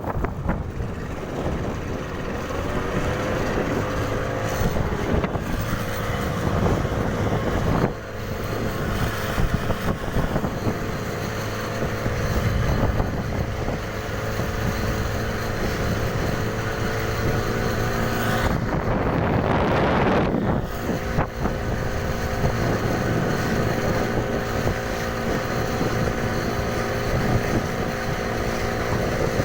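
A 15-horsepower fishing-boat engine running steadily on test at a constant speed. About two-thirds of the way through, a rushing noise rises over it for a couple of seconds.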